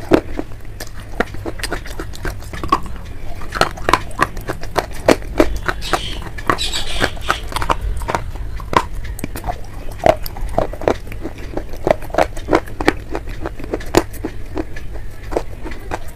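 Slate pencil pieces being bitten and chewed, a dense, irregular run of sharp crunches and cracks as the hard chalky slate crumbles.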